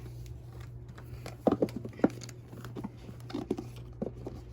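Unboxing handling noise: a few short sharp clicks and taps as the iPad's box contents are handled, over a steady low hum.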